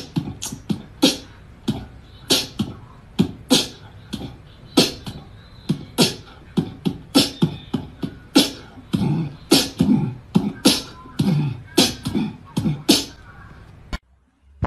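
Beatboxing: a fast string of sharp mouth clicks and pops, about three a second, in an uneven rhythm. It cuts off suddenly shortly before the end.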